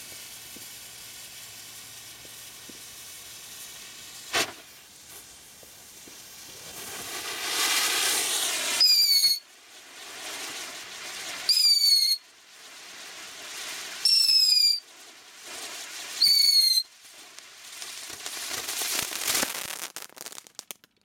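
Homemade firewheel of two firework tubes burning: a steady fiery hiss, one sharp bang about four seconds in, then the hiss swells. From about nine seconds in come four short, loud whistles about two and a half seconds apart, with hissing between them, until it burns out near the end.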